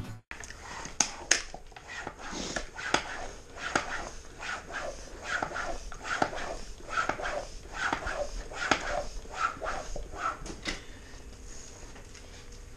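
Rhythmic panting, about two quick breaths a second close to the microphone, with a few sharp clicks and knocks in between; the panting fades away near the end.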